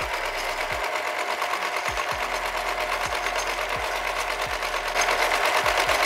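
Compact electric sewing machine (a 'Mini Ultra') running steadily, rapidly stitching a folded fabric edge, a little louder from about five seconds in.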